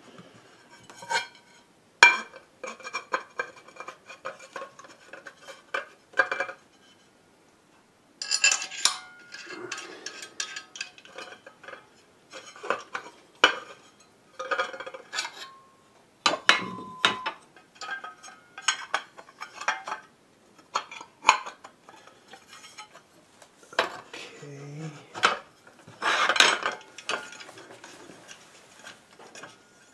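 Aluminium parts of a Just Mobile Xtand Pro laptop stand clinking and knocking against each other and a wooden desktop as they are handled and screwed together. Irregular metallic clinks and taps, some ringing briefly.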